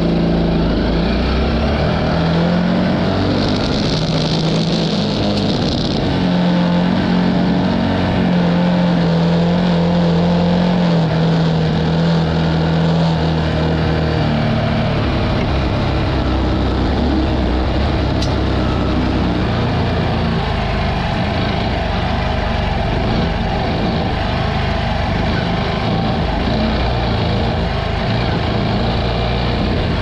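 Honda CT125's single-cylinder four-stroke engine running as the bike is ridden over gravel and sand. Its note holds steady, then drops lower about halfway through.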